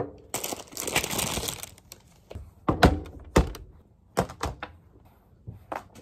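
A glass juice bottle knocks down onto a desk, then a paper bag rustles and crinkles for about a second and a half. Several separate knocks and thuds follow as things are put down on the desk.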